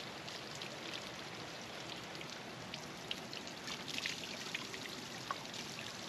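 Spring water falling in a thin stream from a pipe spout and splashing onto rocks, with a plastic bottle being filled under it: a steady, quiet splashing with scattered light drips and clicks.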